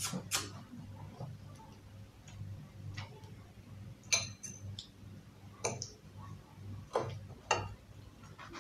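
Cutlery clicking and clinking against ceramic plates at irregular moments, a dozen or so light taps, a couple of them ringing briefly, over a faint low hum.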